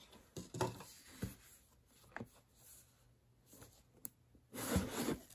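Red cardboard watch box handled and opened by hand: faint scattered rubs and light taps of card against fingers, a sharp click about four seconds in, and a louder stretch of cardboard rustling near the end.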